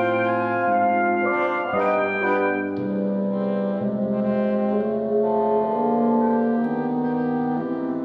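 Orchestral wind section, French horns and trombones with clarinets, flute and bassoon, playing held chords that move to a new chord about every second.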